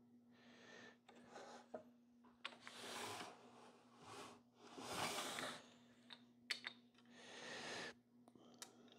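Soft breathing close to the microphone, with a few sharp clicks and light scrapes as a table-saw miter gauge and its fence stop are slid and adjusted by hand, over a faint steady low hum.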